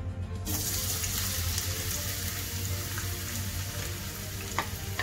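Diced raw potatoes dropped into hot sunflower oil in a frying pan, the oil starting to sizzle about half a second in and frying steadily after that, with a couple of light clicks near the end.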